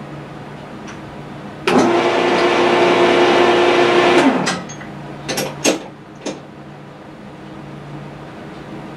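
Electric drill running at a steady speed for about two and a half seconds, boring out a small brass compression fitting, then a few sharp taps.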